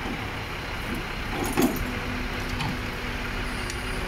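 Heavy vehicle engines running steadily during a crane lift of a mixer truck, with a brief loud knock about a second and a half in and a steady hum joining just after it.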